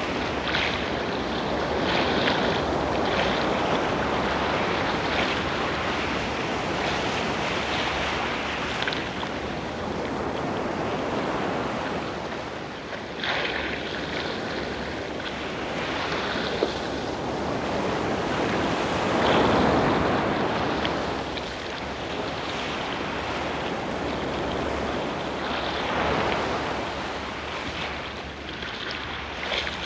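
Sea waves washing in: a continuous rush of surf that swells and ebbs, with a strong surge about two-thirds of the way through.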